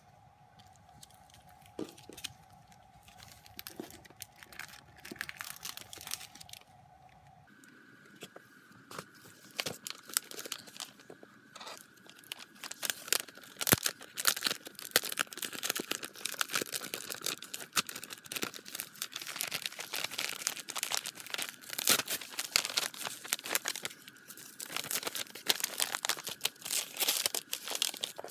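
Clear plastic sleeves and packaging crinkling and rustling in the hands, sparse at first, then busier and louder from about eight seconds in.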